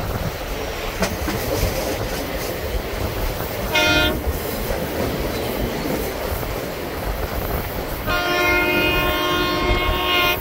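Passenger train running, with a steady rumble of wheels on rail heard from an open-air car. The locomotive horn ahead sounds a short blast about four seconds in, then a longer blast near the end.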